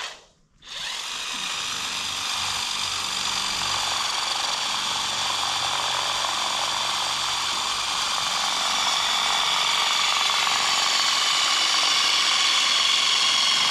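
DeWalt 20-volt cordless drill boring an anchor hole into a concrete floor slab through a wooden guide block. It starts under a second in and runs steadily, growing a little louder.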